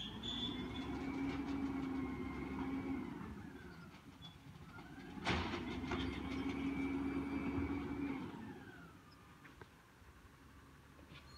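Peterbilt 320 garbage truck with an Amrep side-loader body revving its engine to run the hydraulics: a whine rises, holds for a few seconds and falls away, twice, over a steady engine hum. A single sharp bang comes just before the second rise.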